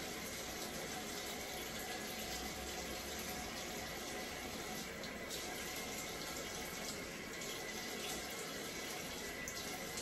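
Bathroom faucet running steadily into the sink while curly hair bundles are wetted under it.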